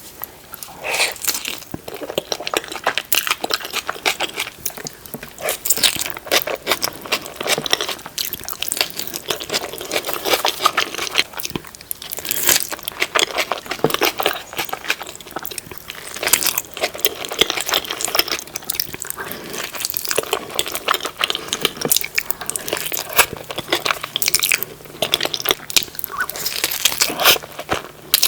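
Close-miked eating of a burrito: continuous chewing with bites and crunches, many small wet clicks throughout.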